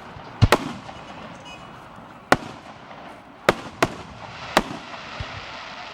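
Fireworks shells bursting in a string of sharp bangs: a quick pair about half a second in, then single bangs a couple of seconds apart, about six in all.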